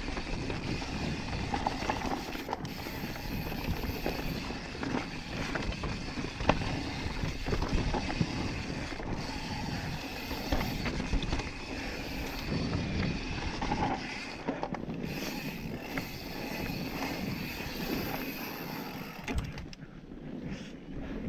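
Yeti SB5 full-suspension mountain bike riding fast down a dirt singletrack: tyres running over the dirt with a steady rush and the bike rattling and clicking over bumps. The noise eases off a little near the end.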